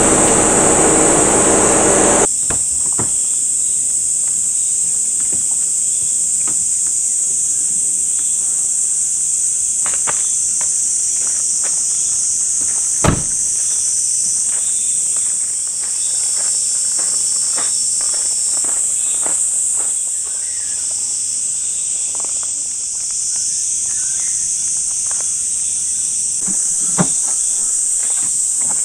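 Steady high-pitched chorus of insects in summer woodland, with scattered steps on gravel and a couple of sharp thumps, one about halfway through and one near the end. The first two seconds hold vehicle engine noise that cuts off abruptly.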